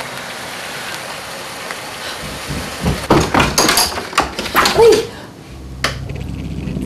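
Loud knocking and rattling at a front door, a short creak, then a single sharp click as the door is opened.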